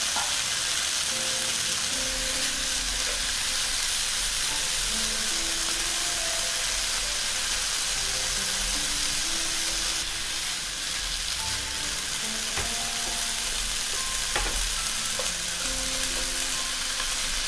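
Potato matchsticks and sliced red onion sizzling steadily in hot oil in a nonstick pan, with a spatula now and then turning them and clicking against the pan. Soft background music plays underneath.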